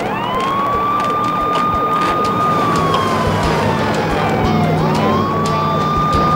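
A vehicle siren wailing in a slow cycle. Its pitch climbs quickly, holds high for about two seconds, slides slowly down, then climbs and holds again near the end.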